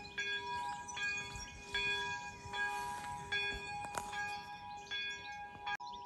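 Monastery church bells ringing in a steady peal, a stroke a little more than once a second. The ringing cuts off suddenly near the end, and birds are heard chirping.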